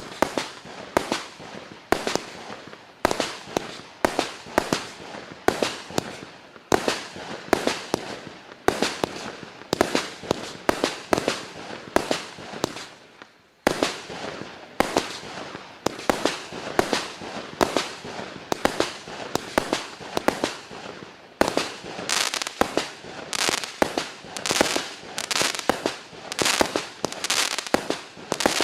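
A 192-shot firework cake (battery) firing shot after shot: a rapid, steady string of sharp bangs, several a second, with two short lulls between sequences.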